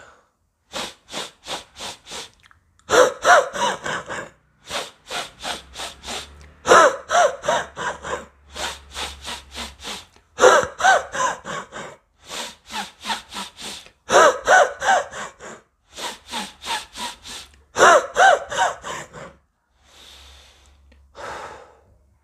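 A person doing a forceful breathing exercise: a quick run of about five sharp sniffs in through the nose, then about five hard, louder puffs out through the mouth, repeated five times in a steady rhythm. Softer breathing follows near the end.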